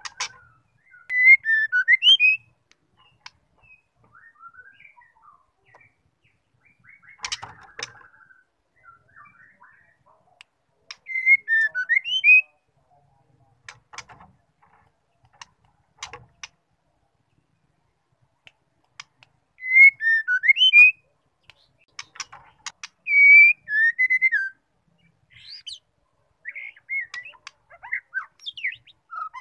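White-rumped shama giving short whistled phrases of quick rising and falling notes, four loud bursts of about a second each with pauses between. Fainter twitters and sharp single clicks fill the gaps.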